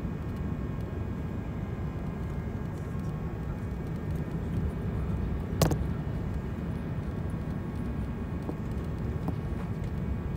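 Airbus A380 cabin noise on approach, heard from a window seat: a steady low rumble of the Rolls-Royce Trent 900 engines and airflow. One sharp click a little past halfway.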